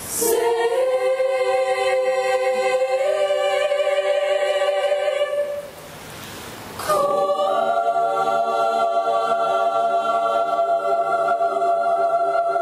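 Mixed choir singing long sustained chords: one chord held for about five seconds, a short break, then another held chord from about seven seconds in.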